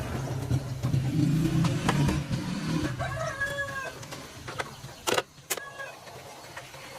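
A small engine running with a steady low hum for about three seconds, then fading away. Chickens cluck around it, and two sharp clicks come about five seconds in.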